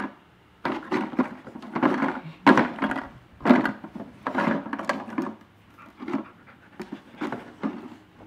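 Plastic bottles holding dog treats, hung on a wooden dowel, knocked and swung by a husky's nose: a series of short clattering knocks, roughly one a second, with the treats rattling inside.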